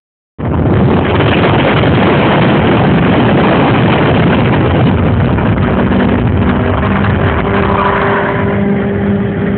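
A motor vehicle running at speed: a loud, steady rushing noise that starts abruptly, with a steady engine drone showing through from about six seconds in.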